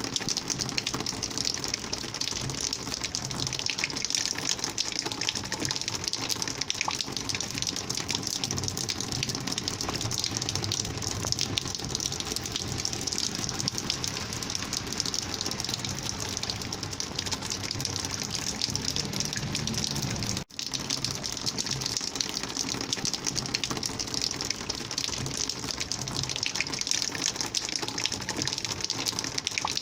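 Rainwater flowing in a steady, gushing rush. It cuts out for an instant about two-thirds of the way through.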